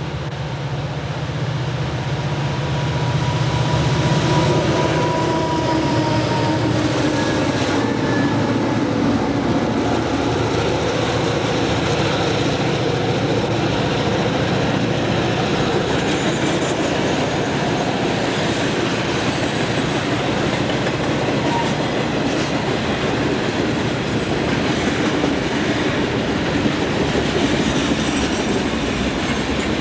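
Freight train rolling past as it picks up speed: a steady rumble of steel wheels on rail, with clicking over the rail joints and some high wheel squeal. A diesel locomotive's low engine drone is heard for the first few seconds.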